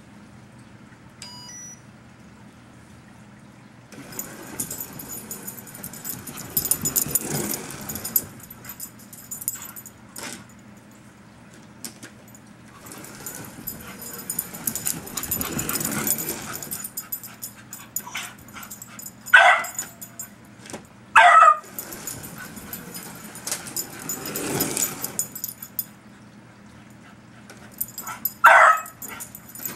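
A beagle barks three times, twice close together past the middle and once near the end, at Carrera Digital 132 slot cars. Between the barks the slot cars run in spells of a few seconds, a high electric motor whine with hiss that swells and fades as they lap the track.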